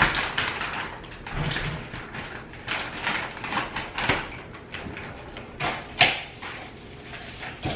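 Plastic wrap crinkling and rustling as it is torn off a large framed mirror, with cardboard packing strips scraping and knocking against the frame. Sharp louder clicks come right at the start, about four seconds in and about six seconds in.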